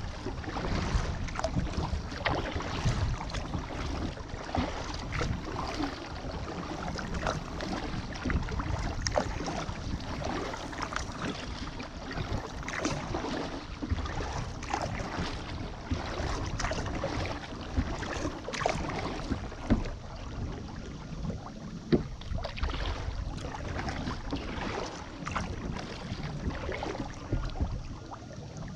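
Kayak paddling on calm water: irregular small splashes and drips as the paddle blades dip in and lift out, over a steady low rumble of wind on the microphone.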